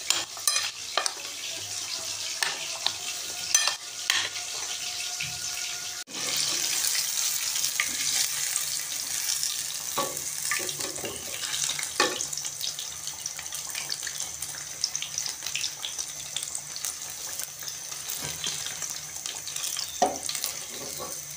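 A spoon stirs and clinks against a glass bowl of vegetables in cream. From about six seconds in, fish pieces frying in hot oil in a wok give a steady sizzling hiss, with a few sharp clinks of a perforated metal skimmer against the wok.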